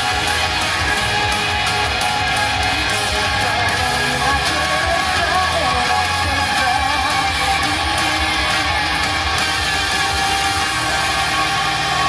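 Yosakoi dance music: a loud rock track with electric guitar and singing.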